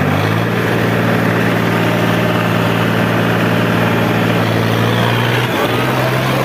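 Preet 3549 tractor's diesel engine running hard, pulling under heavy load in a tug-of-war. Its steady note drops a little about a quarter second in as it lugs down, and wavers briefly near the end.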